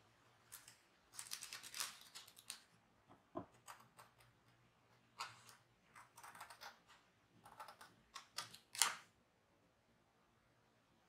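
Scissors cutting a decal sheet: three short runs of quick snipping clicks with paper rustle, the sharpest snip near the end.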